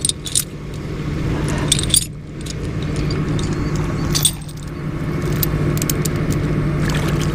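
Water splashing and sloshing around someone wading through a flooded ditch, with many sharp clinks and ticks. Under it runs the steady low hum of the rollback tow truck's engine.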